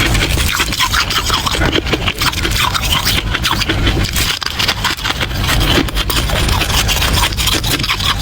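Close-miked crunching of soft frost ice: a dense, unbroken run of crackles and scrapes with a low rumble underneath.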